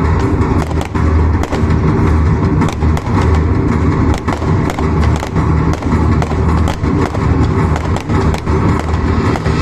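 A dense barrage of fireworks: rapid, irregular bangs and cracks over a continuous low rumble of explosions.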